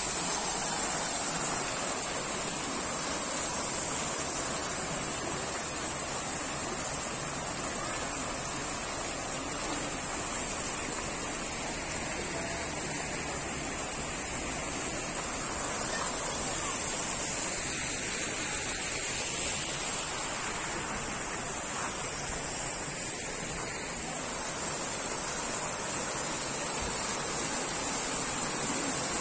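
Ornamental fountain jets splashing into their pool: a steady rush of water, with a steady high hiss over it.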